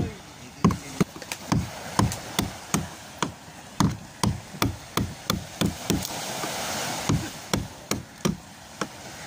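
Hammer striking a chisel to chip damaged fibreglass off a boat hull: a steady run of sharp knocks, about two to three a second. It is the stripping of the damaged spot, cleaning it down before a fibreglass patch goes on.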